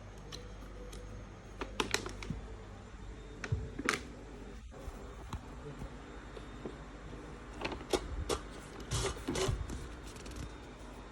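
Scattered clicks, taps and rustles of packaging being handled as a boxed GPU module is unpacked, in small groups a few seconds apart over a low steady hum.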